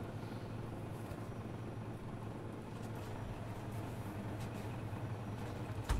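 Glass beer bottles being taken from a cardboard case and set into a bottle fridge: a few faint clinks and a louder knock near the end, over a steady low hum.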